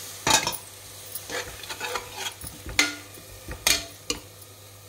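Steel spoon stirring in an aluminium pressure cooker pot, scraping and striking the side with several sharp clinks, over a faint sizzle of mint, tomatoes and onions frying.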